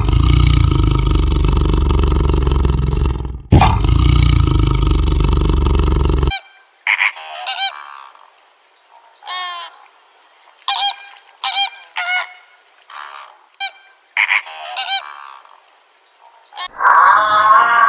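Tiger roaring twice, each deep roar lasting about three seconds. Then flamingos honking, about a dozen short separate calls. Near the end a louder, wavering animal call begins.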